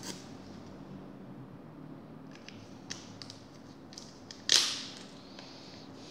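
Hands handling small items on a tabletop: a few light clicks and ticks, then a short, loud rustle about four and a half seconds in that fades within half a second.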